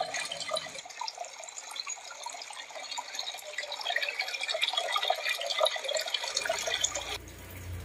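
Running water trickling and pattering, a dense stream of small drips and splashes; it fades shortly before the end as a low hum comes in.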